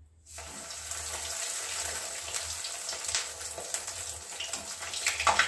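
Breadcrumb-coated potato snack sizzling in hot oil in a steel kadhai, a dense hiss with many small crackles that starts just after it goes into the oil.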